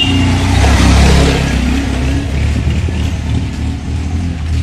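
Motorcycle engines running as two bikes ride by. One passes close and is loudest about a second in, then a steady low engine note continues as they ride on.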